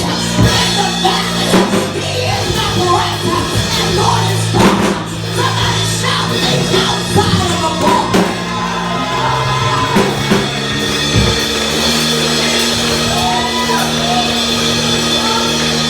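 Live church music: held keyboard chords that change a couple of times, with drum kit hits, and a voice singing and shouting over it.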